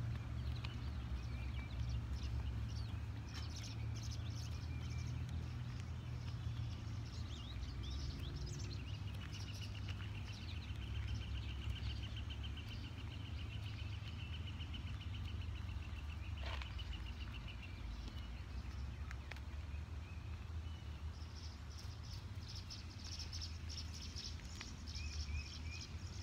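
Wild birds chirping and singing, with a long rapid trill of several seconds near the middle and another fast, higher trill near the end, over a steady low rumble.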